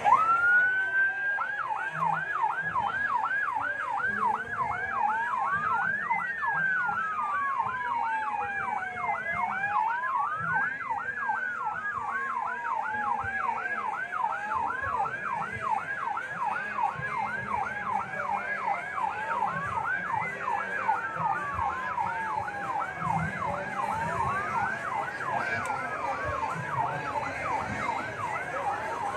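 Vehicle sirens going together. One is a fast yelp, cycling about three times a second, that starts with a rising sweep about a second in. Over it a second siren wails slowly up and down, once every four to five seconds.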